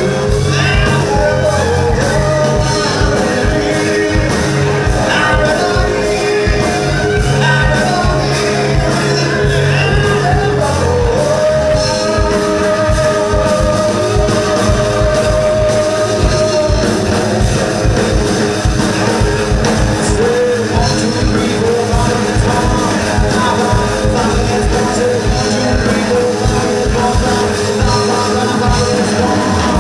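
Live rock band playing loudly: a singer over two electric guitars, electric bass and a drum kit, with a long held note about halfway through.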